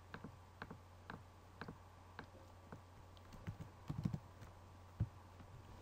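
Computer keyboard keystrokes while code is edited: scattered light taps roughly every half second, a quick cluster about four seconds in and a sharper click about a second later, over a faint steady low hum.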